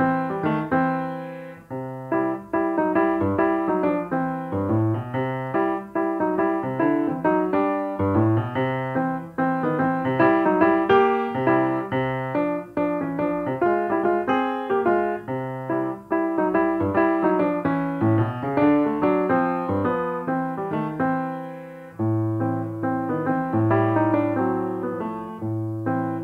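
Background piano music: a continuous run of notes over a low bass line, with a short pause just before the end.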